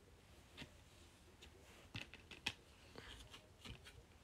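Faint, scattered clicks and taps of a plastic Blu-ray case being handled as its hinged disc tray is turned; otherwise near silence.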